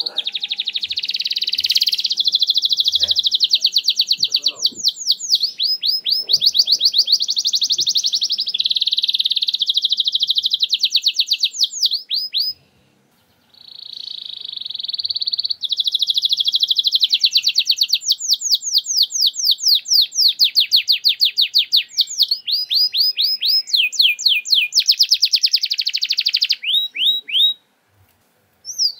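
Domestic canary singing in long phrases of rapid repeated-note trills, the fast 'nembak' style of canary song. The song breaks off for about a second midway, then runs on and stops shortly before the end.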